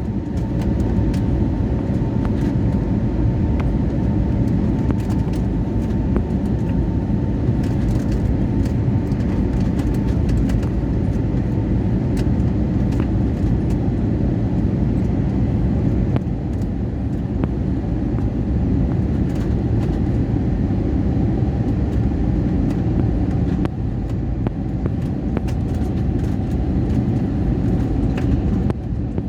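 Steady loud rumble of an airliner's engines and airflow during landing. A faint engine whine drifts slightly lower over the stretch, with scattered light rattles.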